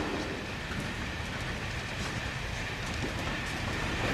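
Steady running noise of a moving passenger train heard from inside the carriage, a low, even rumble.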